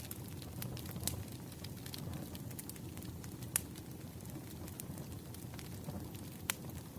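Wood fire crackling: a steady low rumble of flames with frequent sharp pops and snaps at irregular intervals, the loudest pop about three and a half seconds in.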